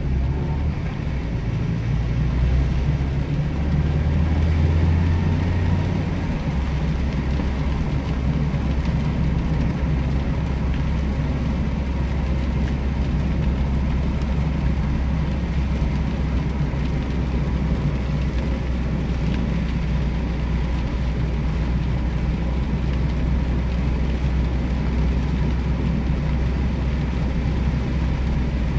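Mazda MX-5 Miata 1.8's four-cylinder engine running steadily on the move, heard from inside the cabin, with the hiss of tyres on a rain-soaked road. The low engine note drops about six seconds in, then holds steady.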